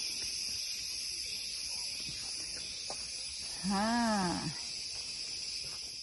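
Steady high-pitched chorus of rainforest insects. About halfway through, one short call rises and then falls in pitch.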